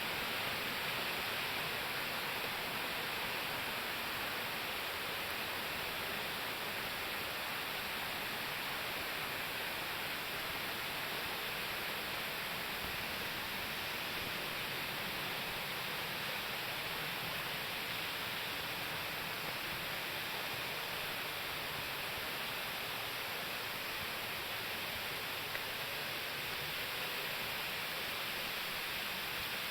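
Waterfall rushing steadily: an even hiss of falling water that doesn't change.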